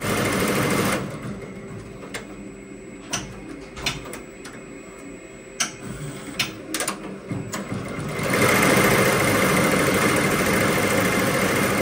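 ZSK multi-head commercial embroidery machine. It runs for about a second, then goes quieter with scattered sharp clicks for several seconds, and from about eight seconds in it stitches at speed with a steady, fast running sound.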